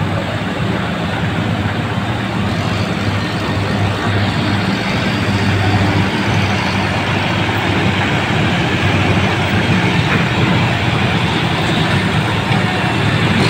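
John Deere tractor's diesel engine running hard under heavy load, hauling a sugarcane-laden trailer through deep mud. It is a steady, loud engine note that builds slightly toward the end.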